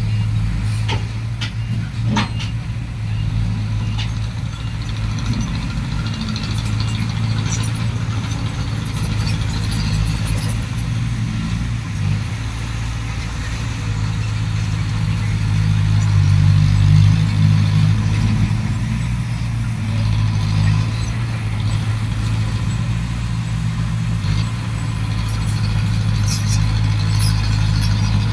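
Heavy diesel engine of a dump truck or bulldozer running steadily, a low hum that swells a little past the middle, with a few light clicks near the start and near the end.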